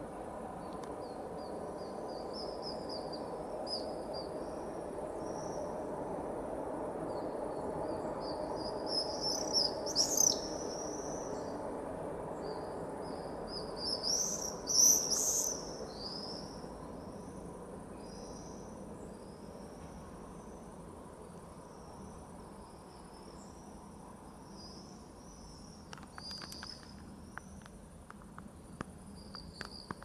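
A flock of birds calling in short, high chirping trills as they fly, with two louder passes about a third and halfway through. Beneath them runs a steady distant city hum that fades in the second half, and a few faint clicks come near the end.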